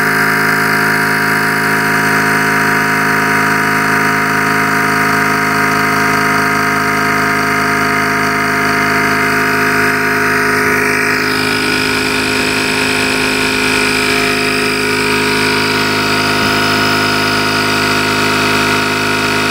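Parkside 20V cordless compressor/tyre inflator running steadily, pumping a tyre up toward its preset 2.5 bar. Its tone shifts a little about halfway through.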